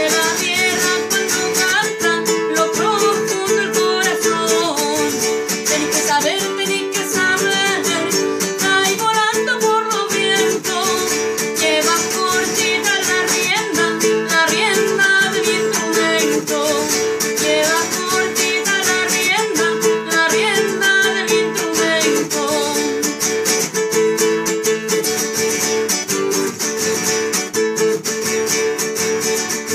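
Small acoustic guitar with a capo, played by hand in a continuous run of picked and strummed notes.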